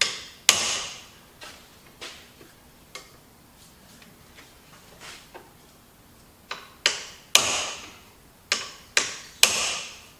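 Hammer strikes on a metal spanner wrench that is pinned into the aluminum head gland of a skid-steer lift cylinder, each blow sharp and ringing, meant to shock the gland loose from the steel cylinder body. There are two hard blows at the start and a few lighter taps, then a steady run of about eight blows near the end, about two a second. The tight gland is not breaking free.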